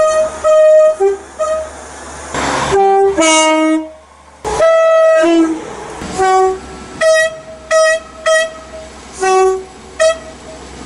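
Train two-tone horns sounding a rapid series of short blasts, high and low notes alternating, with brief pauses between groups.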